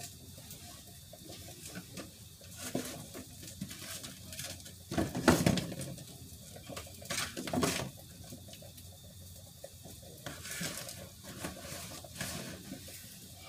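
Pots and metal cooking utensils being handled and stirred, with scraping and clatter. Two louder bursts of clanking come about five and about seven seconds in.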